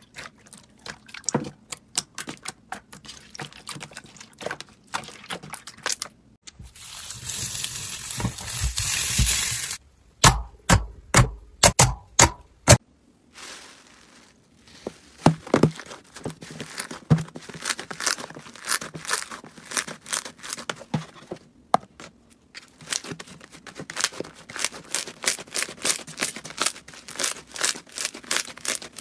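Slime being pressed, poked and stretched by hands, crackling and popping in rapid clicks. About seven seconds in there is a hissing stretch lasting a few seconds, followed by a burst of loud pops. After a brief lull, a quick even run of crackles carries on to the end.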